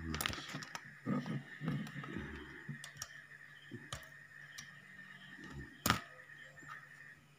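Small clicks and knocks of hands and tools working on an amplifier circuit board, then a single sharp snap about six seconds in, the kind a spring-loaded desoldering pump makes when it fires. A faint steady high whine and low hum run underneath.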